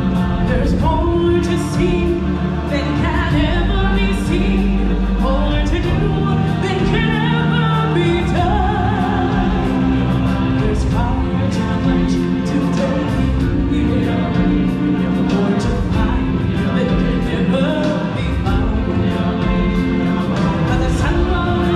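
Music: a choir singing over instrumental backing with a steady beat.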